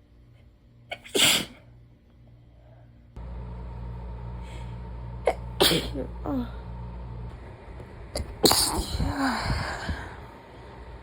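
A woman sneezing several times, each a sudden sharp burst; the loudest comes about eight and a half seconds in and trails off in a short voiced sound falling in pitch. A steady low hum comes in abruptly about three seconds in and runs behind the later sneezes.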